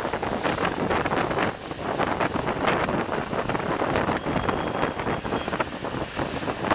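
Wind buffeting the microphone and the rushing road noise of a vehicle driving on a wet highway, heard from inside the vehicle. The noise is gusty and uneven, with a brief dip about one and a half seconds in.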